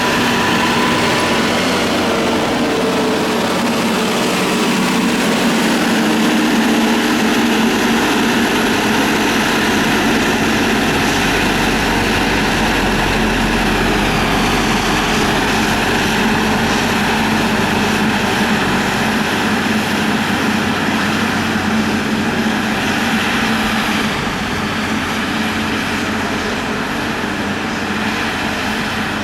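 Motor grader's diesel engine running in a steady drone, its low end swelling a little about halfway through.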